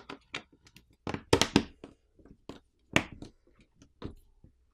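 Back housing of a Samsung Galaxy M13 5G being pressed onto the phone's frame, its catches snapping into place as a scatter of short sharp clicks, the loudest about a second in and again near three seconds in.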